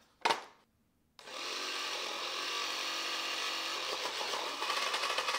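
Battery-powered toy money gun firing: its small motor runs and spins out a stack of paper bills. The whirring starts about a second in and holds steady.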